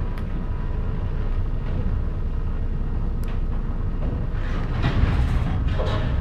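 EN57 electric multiple unit running along the line, heard from inside the carriage: a steady low rumble of wheels on rail. There are a couple of sharp clicks, and a burst of louder clatter begins a little over four seconds in.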